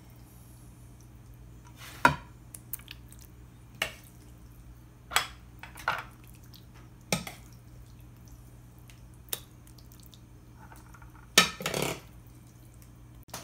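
A large spoon knocking and clinking against the mixing bowl and the glass baking dish as thick mac and cheese is scooped out and dropped in. There are about seven separate knocks, with a louder double knock near the end.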